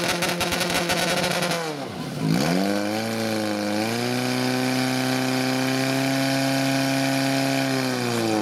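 Portable fire-fighting pump's engine running at high revs while it drives water out through the hoses. Its pitch drops sharply about two seconds in, then climbs back and holds steady.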